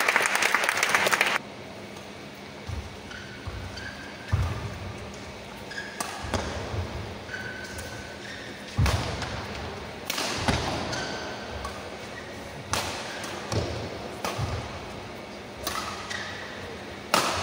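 Badminton singles rally: rackets striking the shuttlecock about ten times, one sharp hit every second or two, with short squeaks of court shoes between the shots. Crowd voices run for the first second and a half, then stop abruptly.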